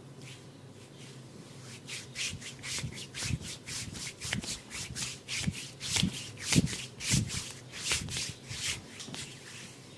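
A barber's hands rubbing briskly over a person's head during a massage, in quick strokes of about three or four a second. The rubbing starts about two seconds in, grows louder with a few dull thuds mixed in, and stops shortly before the end.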